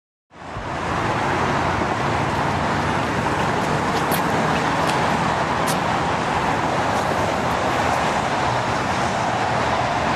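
Steady rushing road-traffic noise that starts abruptly within the first half-second and holds level, with a few faint sharp clicks near the middle.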